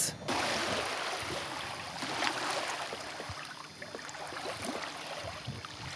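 Steady rush and splash of water along a sailboat's hull as it sails, with a few faint knocks.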